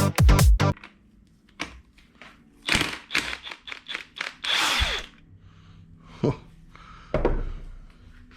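Hand work on engine parts: scattered clicks, two short scrapes and a couple of knocks of metal parts and tools being handled.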